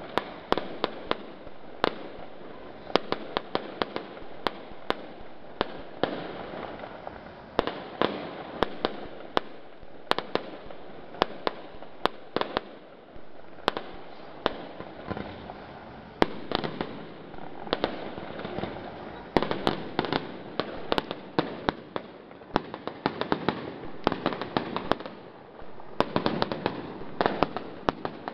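Aerial fireworks display: many sharp bangs from bursting shells in quick, irregular succession, at times several a second, over a continuous din, growing denser near the end.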